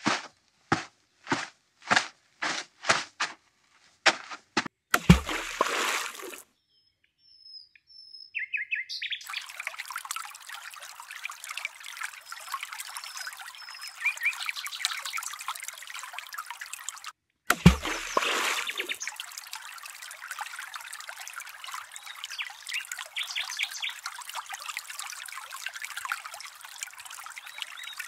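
A miniature hoe scraping and chopping sand in even strokes, about two a second, for the first few seconds. Two dull thumps follow, one about five seconds in and one near the middle. From about nine seconds on there is a steady background of birdsong over trickling water.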